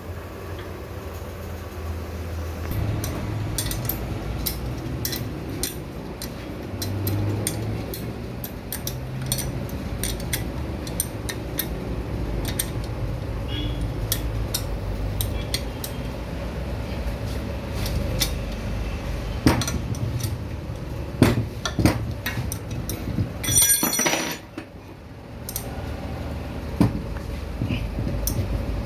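Metal parts and hand tools clinking and tapping as a turbocharger core is fitted into its exhaust-side turbine housing, over a steady low workshop hum. The clicks come scattered and grow denser in the second half, with a louder clatter about three-quarters of the way through.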